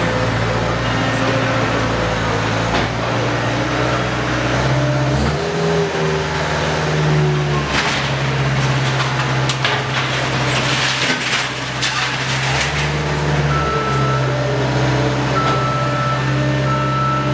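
Skid-steer loader's diesel engine running under hydraulic load, its revs shifting up and down as the rotating fork tips a demolition cart. In the middle, debris clatters and crashes out of the cart into a steel roll-off dumpster, and a short beep repeats near the end.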